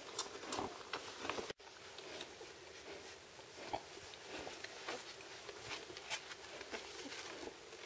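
Faint rustling and scratching of twelve-day-old Czechoslovakian wolfdog puppies crawling and shuffling on a fabric blanket, with small scattered clicks.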